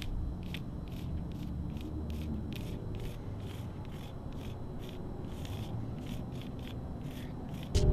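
Chalk scraping on asphalt in short strokes, about two or three a second, over a steady low rumble. The strokes turn much louder right at the end.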